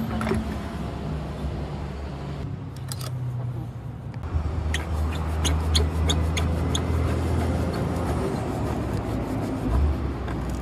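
A series of sharp clicks and scrapes from a screwdriver working at a truck's headlight housing, over a steady low drone.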